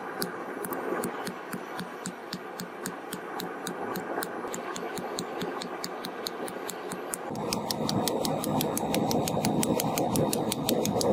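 Hand hammer forging a red-hot steel blank (bearing steel) on a small steel block anvil: a steady run of blows at about three to four a second over a steady background rush, louder for the last few seconds.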